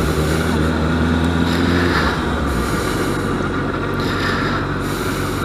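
Honda CBR600RR's inline-four engine running while the bike is ridden off. The engine note is steady, then the lowest part of it drops away about halfway through.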